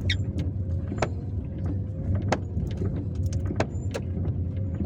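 Inside a car driving on a wet road: steady engine and tyre rumble, with a faint thin whistle from the worn brake pads and a sharp click about every second and a bit.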